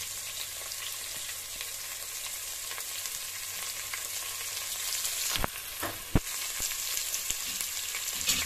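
Hot oil and ghee sizzling in an aluminium pressure cooker as sliced onions are tipped in from a steel bowl. The steady hiss drops off suddenly about five seconds in, followed by a few sharp knocks as the bowl taps the cooker's rim, then lighter crackling.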